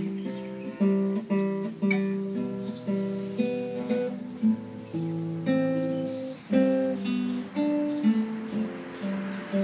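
Nylon-string classical guitar played fingerstyle: a slow, gentle melody of single plucked notes, each left to ring and fade, over sustained lower notes.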